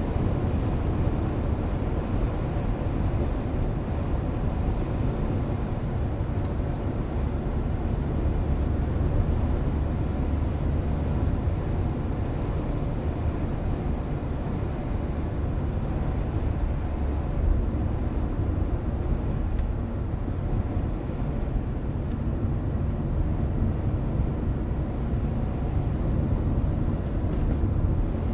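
Steady road and engine rumble inside a car driving at an even speed, deep and unbroken, with a few faint ticks in the last part.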